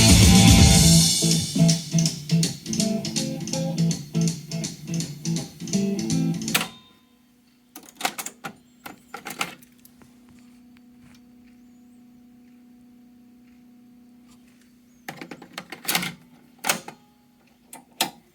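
Guitar-led song playing back from a Sony TC-K61 cassette deck, cutting off abruptly about seven seconds in. Then come several sharp clicks, a faint steady low hum, and more clicks near the end.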